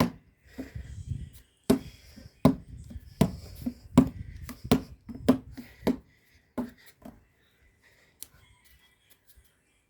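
A basketball being dribbled, bouncing hard and evenly a little more than once a second for about seven seconds, then stopping.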